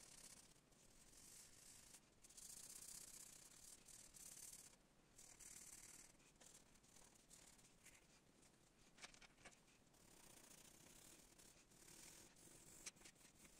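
Faint scratching of a coloured pencil shading on paper, coming in stretches of a second or two, with a couple of light ticks in the second half.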